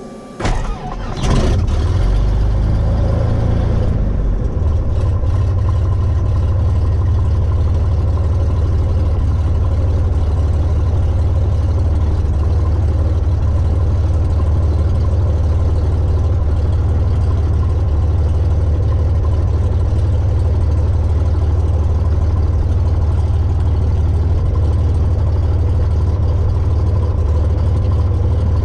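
Cessna 182's six-cylinder piston engine starting: a second or so of starter cranking and uneven firing, then it catches and settles into a steady, low idle, heard from inside the cabin.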